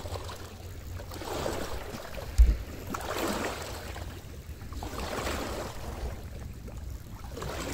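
Small waves lapping and washing against a rocky shoreline, a soft swell of water about every two seconds. There is a brief low thump about two and a half seconds in.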